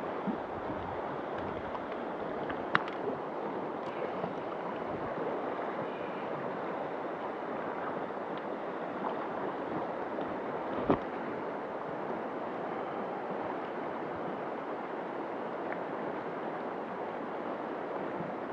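Stream water rushing steadily. Two short sharp knocks stand out, one about three seconds in and another a little past halfway.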